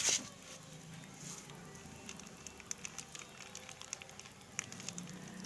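Soap powder being sprinkled into a container for slime: a knock at the start, then faint scattered ticks and light patter.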